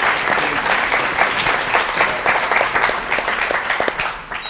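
Audience applauding: many hands clapping in a dense patter that thins out near the end and then stops.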